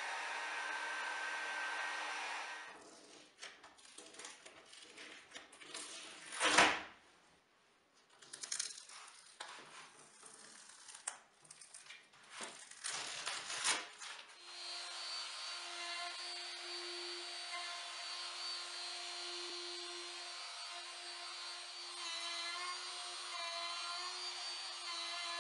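A heat gun blowing steadily over fresh epoxy for the first two seconds or so. Then packing tape is peeled and torn off the cured resin board's edge in crackly rips, with one sharp loud rip. About halfway through, an electric trim router in a slab-flattening jig starts and runs steadily with a held hum as it surfaces the epoxy-and-wood board.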